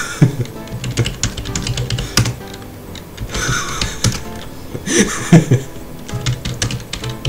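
Computer keyboard being typed on: a run of quick keystroke clicks as short chat messages are typed. Two louder, brief noisy bursts break in, around the middle and about five seconds in.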